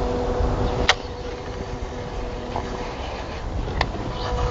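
Steady hum of a boat motor over a low rumble of wind, with two sharp clicks, about a second in and again near the end.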